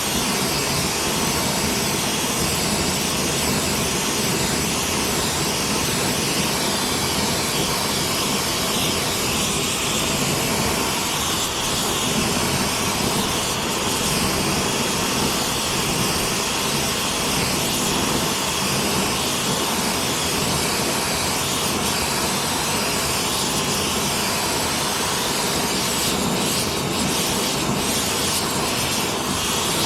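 Gas torch flame burning steadily with a constant rushing hiss, heating the dented steel tube of a Ford 9-inch axle housing so it can be hammered out.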